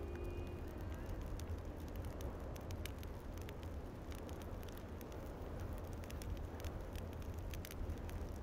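Bonfire crackling, with scattered sharp pops, over a steady low rumble.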